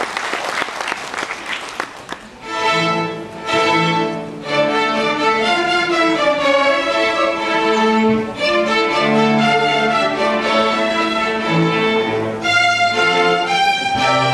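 Applause fades out, and about two seconds in a student string orchestra of violins and cellos starts to play. It opens with two short chords, then goes on into a continuous piece.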